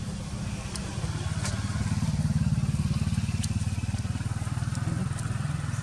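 A small engine running steadily, a low, rapid throbbing that grows a little louder about a second in, with a few faint sharp clicks over it.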